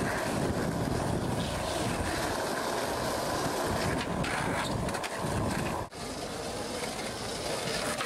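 Skateboard wheels rolling on rough asphalt: a steady rumble and hiss, breaking off for a moment about six seconds in.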